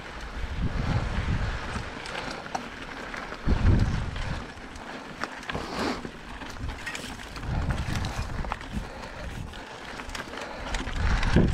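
Mountain bike being ridden along a dirt trail: tyre noise with scattered clicks and rattles from the bike, and gusts of wind on the microphone, the strongest about three and a half seconds in.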